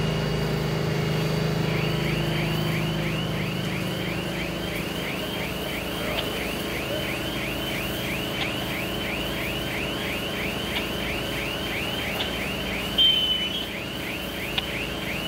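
An electronic alarm chirps high and evenly, about three times a second, over the low steady hum of an engine. The hum is strongest at first. About two-thirds of the way through there is a brief, louder knock.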